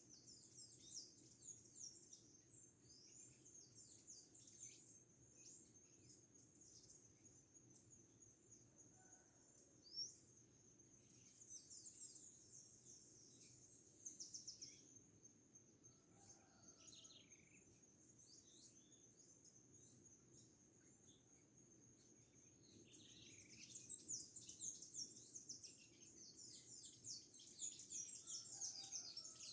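Small birds chirping and twittering in quick high bursts, with the busiest and loudest flurry near the end. A steady high-pitched whine sounds underneath.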